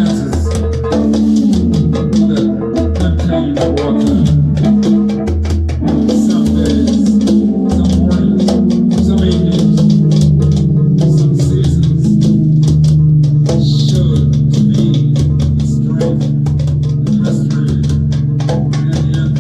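Instrumental jam music: guitar and bass over a busy drum beat, with a long held low note from about eight seconds in.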